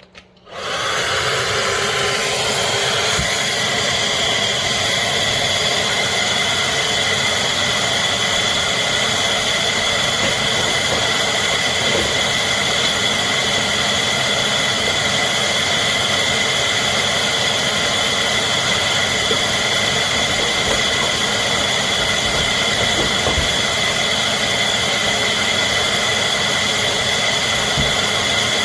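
Cordless stick vacuum cleaner switched on, its motor spinning up over the first second or two and then running steadily with a high whine over the rush of air.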